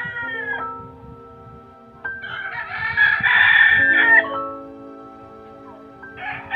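A rooster crowing: one long crow of about two seconds in the middle, with the end of a crow at the start and another beginning near the end. Soft background music with held notes plays underneath.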